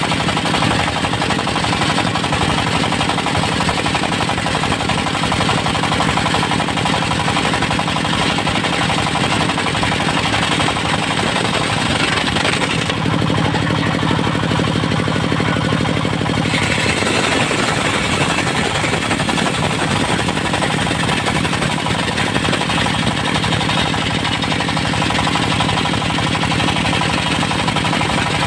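Engine-driven circular sawmill running steadily. For about three seconds midway, the sound turns duller and deeper.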